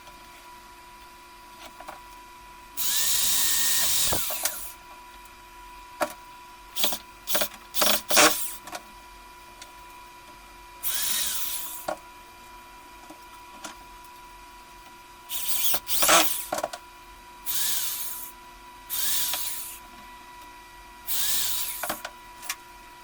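Handheld power drill running in about six short bursts of one to two seconds, each spinning up and winding down. A cluster of sharp knocks and clicks comes between the first two bursts.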